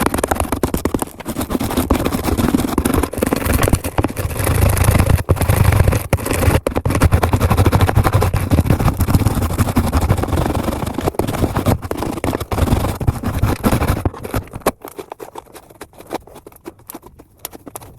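Fluffy shaving-foam slime being worked by hand, a dense run of small sticky crackles and squishes with a low rumble of handling. It softens about 14 seconds in.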